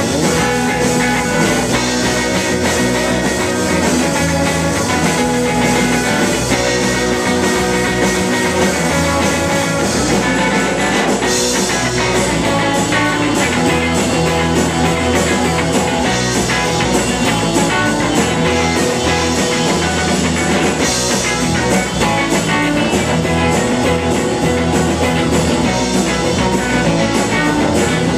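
Rock band playing live, loud and continuous: electric bass and a drum kit with cymbals driving a steady beat.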